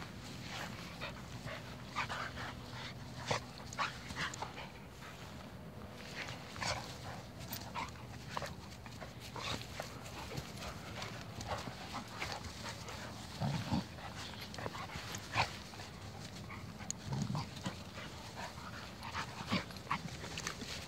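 A beagle and another dog play-wrestling on grass: steady scuffling with many quick clicks and rustles, and a couple of short low growls about two-thirds of the way through.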